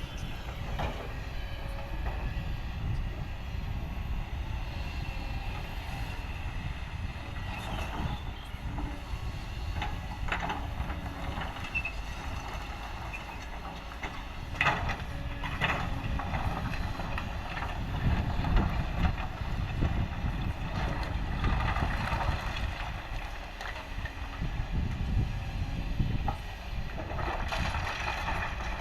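Heavy diesel machinery running steadily with a low engine rumble, with a few sharp knocks about a third and halfway through, and the noise swelling now and then.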